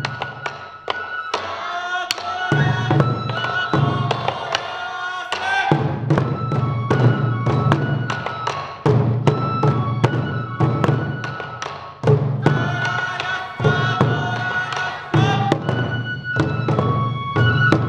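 Sansa odori festival music: massed taiko drums beating a fast, steady rhythm under a high bamboo-flute (fue) melody.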